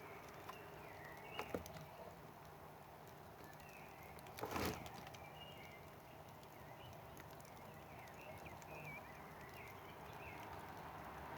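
Wood campfire crackling faintly, with a few sharp pops, the loudest about halfway through, over a low steady rustle. Faint short bird chirps sound now and then.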